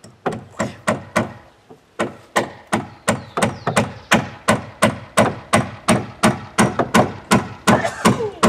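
Steady hammering on a wooden boat hull, about three strikes a second, with a short pause about one and a half seconds in.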